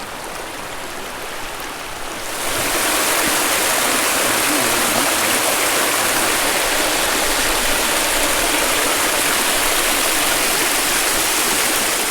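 Creek water rushing over rocks, a steady hiss that jumps louder and brighter about two seconds in.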